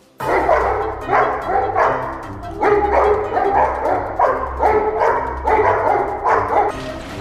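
A dog barking in a steady string of about nine loud barks, starting abruptly and coming roughly every two-thirds of a second: alert barking at a stranger outside the glass door. Low background music runs underneath.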